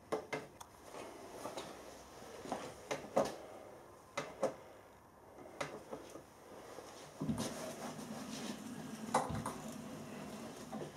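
Scattered clicks and clunks of a milling machine's hand-operated one-shot lubrication pump and its handle being worked. About seven seconds in, a steady low hum starts.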